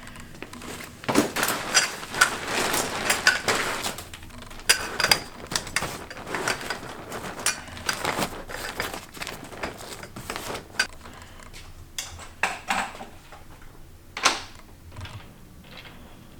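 Gear being handled: a busy patch of rustling and clatter about a second in, then scattered clicks and knocks, with one sharper knock near the end.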